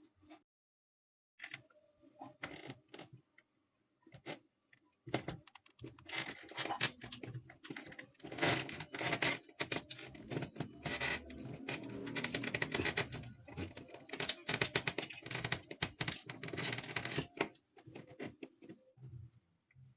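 Rapid clicking, scraping and rustling of hands working with tools and parts: a few scattered clicks at first, then a dense run lasting about twelve seconds from about five seconds in, dying away near the end.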